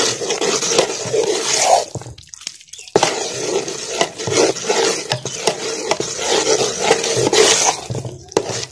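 A metal spoon stirring and scraping thick gram flour roasted in ghee around an aluminium pot, in repeated strokes with a short pause and a sharp clink about three seconds in. The pot is off the heat and is stirred so the besan doesn't overcook at the bottom.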